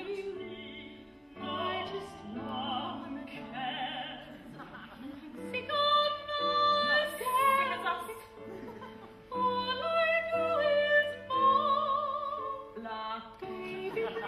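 Operatic singing with wide vibrato on long held notes, over an instrumental accompaniment. The phrases grow louder and rise in pitch about six seconds in.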